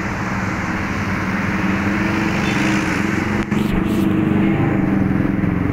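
Busy road traffic: motorcycles and cars passing close by over a steady engine drone.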